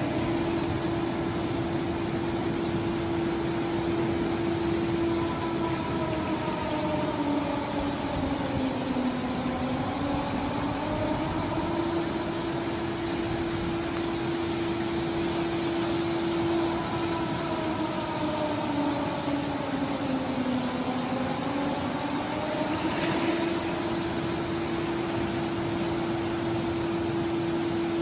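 Panama's emergency alert siren wailing: one tone holds steady for several seconds, sags lower over a few seconds and climbs back, repeating about every ten seconds over constant hiss. A brief hiss cuts in about three quarters of the way through.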